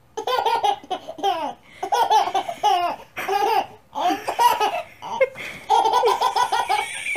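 A baby laughing with a high voice in repeated fits with short pauses. About six seconds in comes a run of quick ha-ha-ha pulses.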